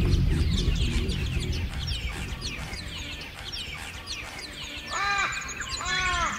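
Car engine and tyre rumble on a dirt track fading away over the first two seconds, under a steady chatter of short, high, downward bird chirps. Near the end, two crow caws about a second apart.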